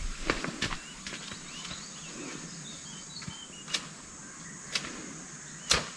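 Quiet field ambience: faint bird chirps and a steady high hiss, with three short knocks about a second apart in the second half.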